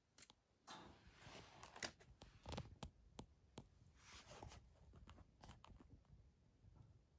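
Near silence in a small room, with faint soft rustles and scattered small clicks.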